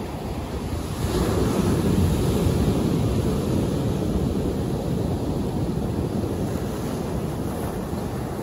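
Medium-sized sea waves breaking and washing over a large shoreline rock. A surge builds about a second in, then eases off.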